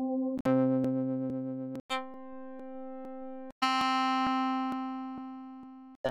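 Spectrasonics Omnisphere 3 keyboard and organ presets previewed one after another. Each is a held synth chord that cuts off and gives way to the next patch about every one and a half seconds. The last, the Tube Keys RMI Brite electric-keyboard preset, fades slowly away before a new organ chord starts right at the end.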